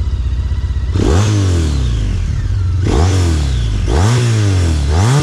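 2004 Honda ST1300's V4 engine through aftermarket Delkevic stainless slip-on mufflers, idling and then revved in four short throttle blips, each rising and falling back toward idle.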